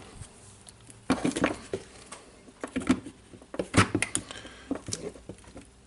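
Handling of a rotary hammer's motor parts and housing as they are fitted together: a scattered series of light clicks and knocks, with the loudest clusters about a second in and near four seconds in.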